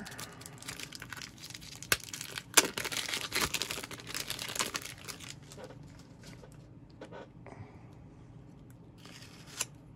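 Crinkling and clicking of plastic as trading cards in hard plastic holders and sleeves are handled. The noise is dense over the first half, with one sharp click, and turns to a few scattered faint clicks after that.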